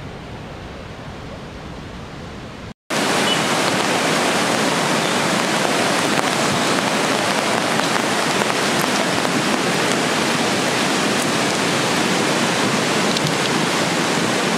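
Steady rushing roar of a river in flood. A brief cut about three seconds in breaks it, and afterwards it comes back much louder and closer.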